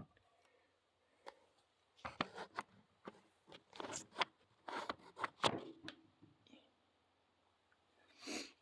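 Piece of red oak scraping and crunching as it is handled, in a cluster of short irregular bursts over a few seconds and one more near the end.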